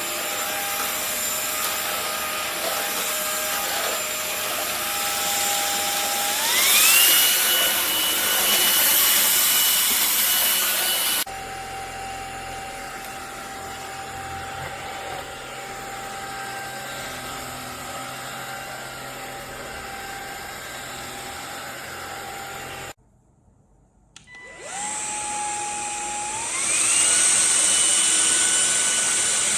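MONSGA MV3 cordless stick vacuum motor running with a steady whine. About six seconds in it speeds up with a rising whine and gets louder. Near the middle it drops to a quieter, lower speed, then cuts off briefly, restarts and climbs back to the higher speed near the end.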